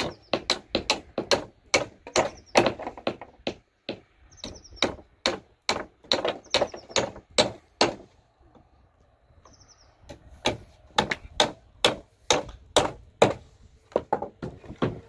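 Hammer driving nails into wooden roof planks: sharp strikes about two a second, stopping for about two seconds a little past the middle before starting again.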